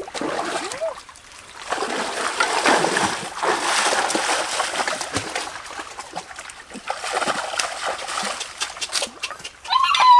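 Water splashing and sloshing in a shallow rocky stream as someone wades and scoops by hand, in irregular bursts. A short high-pitched cry comes near the end.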